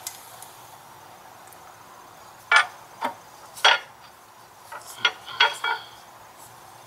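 Clutch pressure plate and flywheel clinking metal on metal as the plate is fitted by hand: about six sharp clinks in two groups, starting about two and a half seconds in, some ringing briefly.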